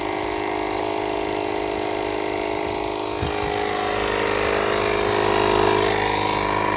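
Old 12 V air pump running steadily, inflating a tractor tire that has just reseated on its bead. There is one brief knock about three seconds in.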